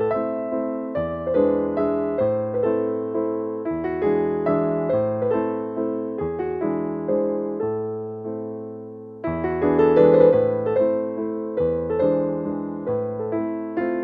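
Background piano music: a steady flow of struck notes and chords. One chord fades out about eight seconds in, then the playing resumes a little louder.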